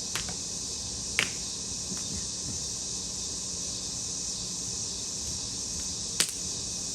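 Scots pine wood burning: a few sharp crackling pops, the loudest about a second in and near the end, over a steady high hiss.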